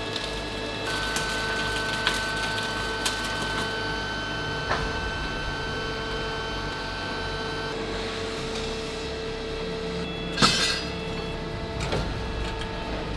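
Forge-shop machinery running steadily with a held hum of several tones, broken by scattered metallic knocks and one louder clank about ten and a half seconds in.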